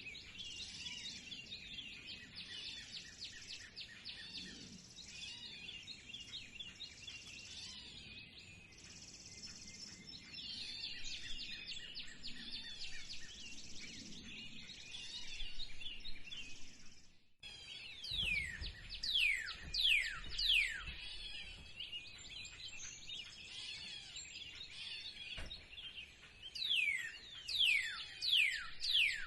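A chorus of many songbirds chirping densely, with a brief break a little past halfway. After the break one bird stands out with loud, falling whistled notes in runs of three or four, twice.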